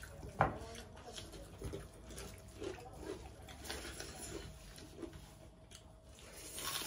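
Eating sounds from people eating rice and chicken with their hands: soft chewing and mouth noises and fingers working food on plates, with one sharp click about half a second in.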